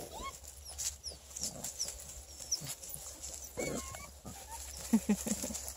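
Six-week-old beagle puppies moving about in grass and dry leaves, with a few soft grunts from them about five seconds in. Small birds chirp faintly in the background.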